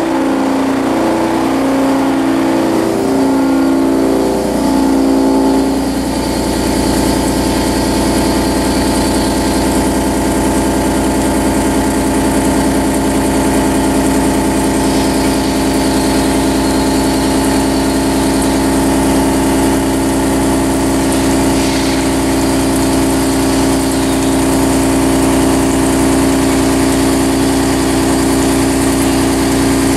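Correa FOX 40 milling machine cutting metal with an end mill, a loud pitched machining hum. For about the first six seconds it pulses, switching back and forth between two pitches, then it settles into a steady tone as the cut continues.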